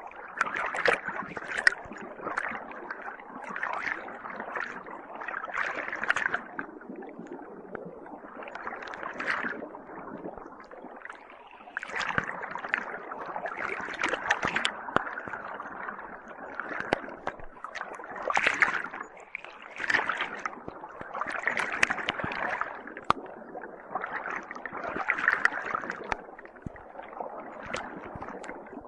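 Air-driven aquarium sponge filter bubbling and gurgling. The sound swells and fades every second or two, with scattered sharp pops.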